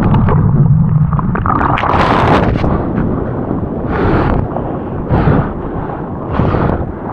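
Heavy surf breaking and whitewater rushing over and around the camera, in a run of loud surges.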